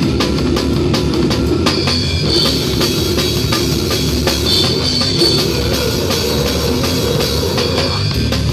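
A metal/hardcore band playing live, heard loud from the drum kit: rapid drum and cymbal hits over the dense, continuous sound of the rest of the band. A high, steady ringing tone rises over it twice, briefly.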